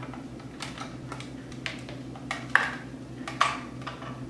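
Irregular light clicks and knocks of kitchen utensils against a mixing bowl on a stone counter, a dozen or so in a few seconds, over a low steady hum.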